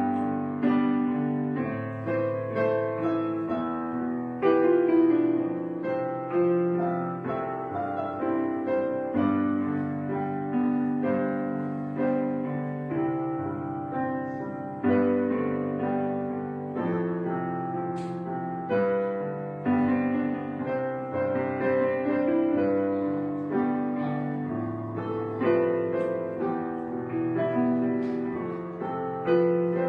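Gentle background piano music: a slow melody over chords that change every second or two.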